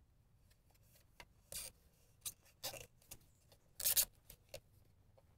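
Filter wrench gripping and turning a new spin-on hydraulic filter canister: a run of short scrapes and clicks, metal on metal, the loudest about four seconds in.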